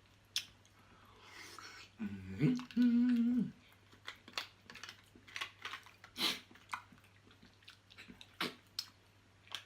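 Close-miked chewing and wet mouth smacks of someone eating saucy crab, with a short held "mmm" hum of enjoyment about two seconds in.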